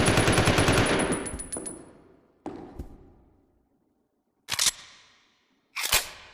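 Heckler & Koch MP5A3 submachine gun firing a fast full-auto burst, about thirteen shots a second, which ends about a second in and fades out in a reverberant tail. Two light clicks follow, then three loud, sharp metallic clacks, the last two close together.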